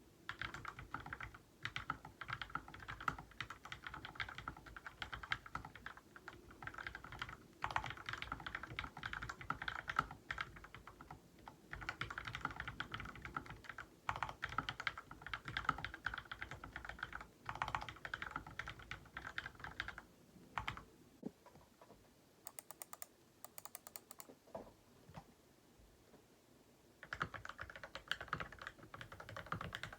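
Continuous typing on an LK67 mechanical keyboard with Gateron KS-3 Milky Yellow Pro linear switches and 9009-style keycaps. The board is first heard in stock form. After a pause about two-thirds of the way through, the typing resumes on the modded board, which has lubed switches, a tape mod and a case filled with clay and polyfill.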